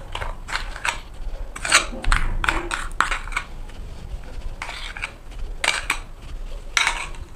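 A spatula scraping and clicking against a bowl, scooping out the cinnamon-sugar filling to spread on rolled-out dough: a series of short, irregular scrapes and taps.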